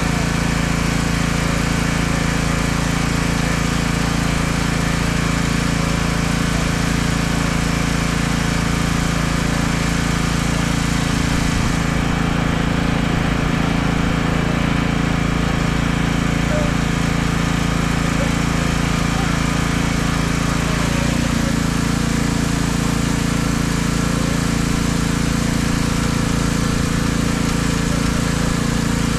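Pressure washer's small engine running steadily at a constant speed.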